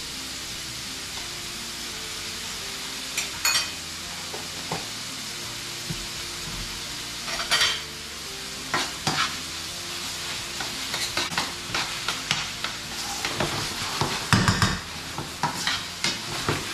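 Onions, curry leaves and ginger-garlic paste sizzling in oil in a stainless steel frying pan, with a steady hiss. A utensil scrapes and clinks against the pan now and then as it is stirred, more often in the last few seconds.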